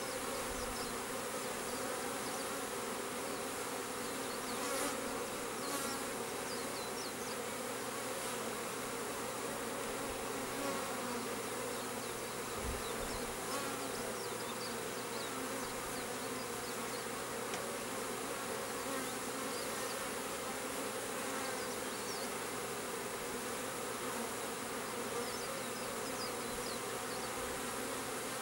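Honeybee swarm buzzing: a steady, continuous hum of many bees flying around and clustering on a swarm trap as the swarm moves into it.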